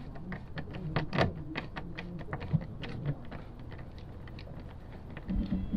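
Screwdriver backing a T20 Torx screw out of a truck's door trim panel: a run of small, irregular clicks and ticks, several a second.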